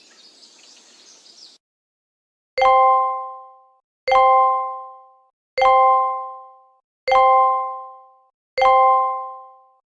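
A bell-like chime sounding five times, evenly about one and a half seconds apart, each ring fading away over about a second.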